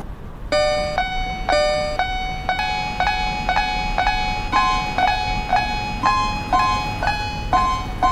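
Level-crossing warning bell ringing kan-kan, about two strikes a second, its pitch stepping between a few notes so that it runs like a little tune.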